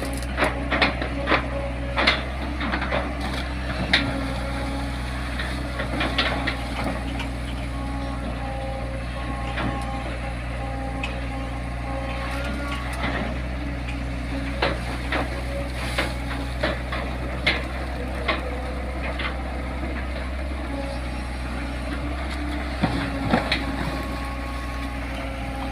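Long-reach excavator's diesel engine running steadily, with intermittent sharp knocks and clanks, several in the first few seconds and more scattered later on.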